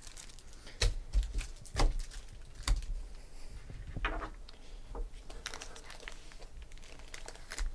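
Silver foil trading-card packs being handled on a table: a few knocks and thuds, then the foil wrappers crinkling as the stack of packs is gathered up.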